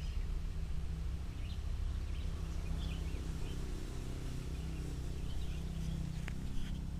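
Outdoor riverside ambience: a steady low rumble with scattered short bird chirps, and a single sharp click about six seconds in.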